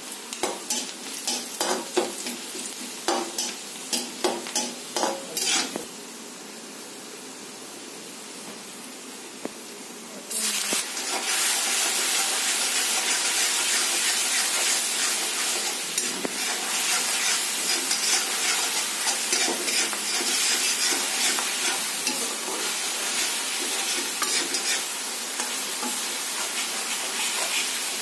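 A perforated steel ladle stirring and scraping in a steel kadhai, clinking a dozen or so times in the first six seconds over a low sizzle. About ten seconds in, a loud sizzle starts suddenly and carries on, with stirring scrapes in it, as red masala paste fries in hot oil.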